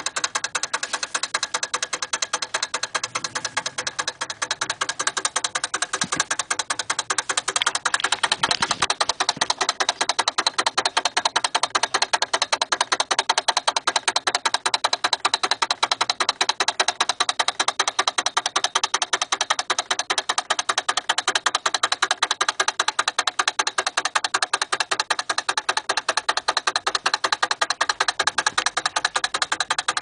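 Spring-wound clockwork drive of a Nordic Ware Micro-Go-Round microwave turntable running: a rapid, even ticking that goes on without a break.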